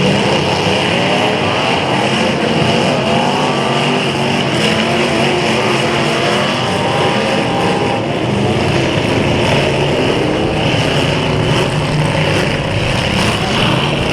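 Several demolition derby cars' engines running and revving together, their pitches rising and falling over one another as the cars drive around and hit each other.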